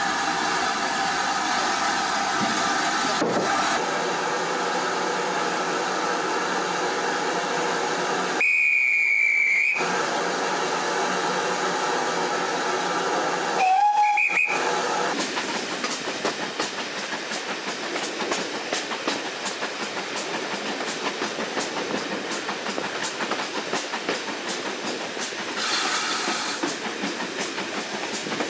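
A standing GWR Prairie tank steam locomotive hissing steadily, then a loud, high steam whistle note of about a second. About halfway through, the guard's short whistle blast sounds as the right-away signal, and the train pulls away, the carriage wheels running with a steady rattle and clicking over the track.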